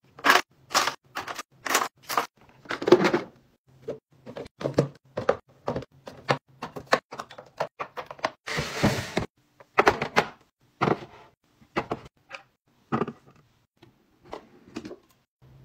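Cosmetic containers and hard plastic items being set down and knocked against a clear acrylic organizer bin: a string of short clacks and taps, about two a second, with a brief rustling hiss about halfway through.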